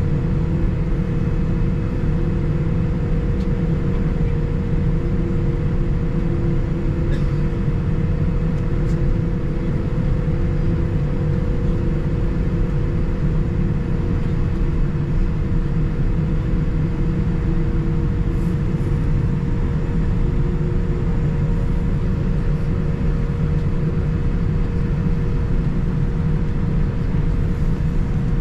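Steady cabin noise inside a Boeing 787-9 airliner: a low rumble with a steady hum over it, unchanging throughout, with a few faint ticks.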